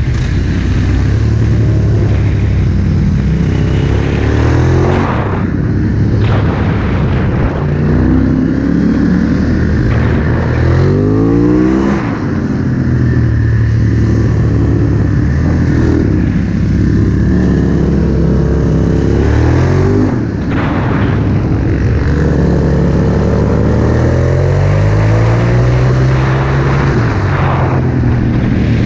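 Aprilia SXV supermoto's V-twin engine with a titanium Akrapovic exhaust, running at full racing revs: its pitch climbs again and again under hard acceleration and falls away through gear changes and braking into corners.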